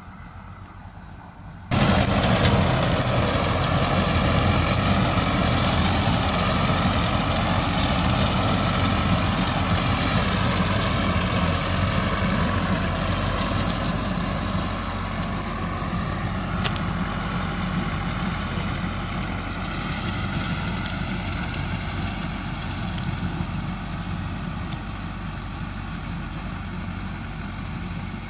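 Farm tractor engine running steadily as it pulls a rotary mower through tall grass. The sound starts suddenly about two seconds in and gradually fades as the tractor moves away.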